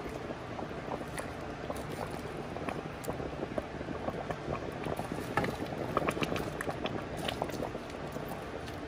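Tomato and beef-broth braising liquid bubbling at a boil in an enamelled Dutch oven, with small pops and splashes as beef shanks are pushed around in it with silicone tongs. The popping and splashing grows busiest a little past halfway.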